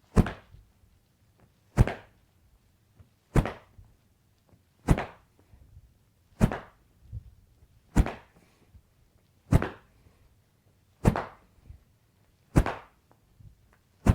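A golf swing trainer stick swung hard in quick repeated practice swings, each a sharp whoosh through the air, about one every second and a half, ten in all.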